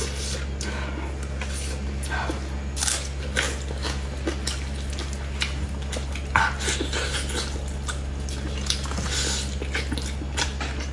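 Close-up mouth sounds of a person biting and chewing tender braised beef knuckle meat off the bone: irregular wet smacks and squelches. A steady low hum runs underneath.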